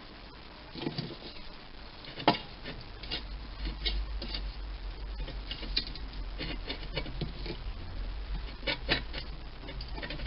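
Irregular light metallic clicks and taps of a wrench being fitted to and worked on a nut welded onto a sheared bolt, with one sharper click about two seconds in. A low steady hum runs underneath from a few seconds in.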